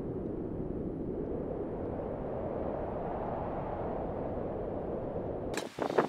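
Steady wind rumbling on the microphone. About half a second before the end it cuts to sharp clicks and rustling as a bag is opened and handled.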